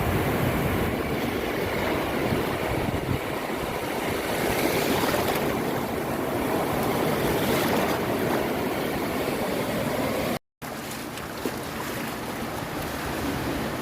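Ocean waves washing onto a beach: a continuous rush of surf that swells and eases every few seconds. The sound drops out completely for a split second about ten and a half seconds in, then carries on a little quieter.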